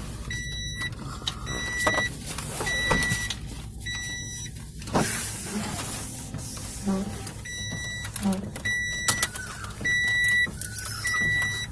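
Car's warning chime beeping at an even pace, about one beep every second or so, stopping for a few seconds midway and then starting again, over the steady low running of the 1998 Mustang's 4.6 V8 at idle.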